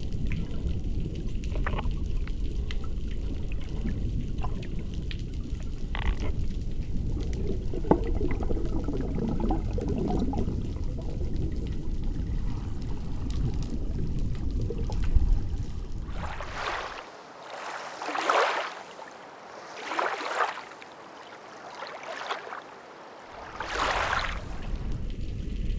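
Moving water: a steady low rushing for most of the time. Then, about two-thirds through, the low rumble drops away and four separate splashing rushes come a couple of seconds apart.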